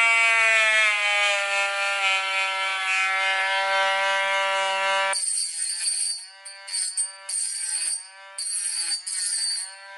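Cordless rotary tool with a small grinding stone running at high speed, a steady high-pitched whine, as it dresses spurs of Nikasil plating off the top edge of an aluminium cylinder barrel. About halfway in, background music with jingling percussion comes in over it, and the whine dips briefly in pitch a few times.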